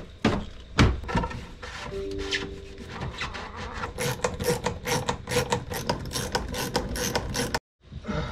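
Hands working a rubber marine exhaust hose and its stainless hose clamps onto a bronze coupler: knocks and rubbing, then a quick run of clicks and scraping in the second half that cuts off suddenly near the end.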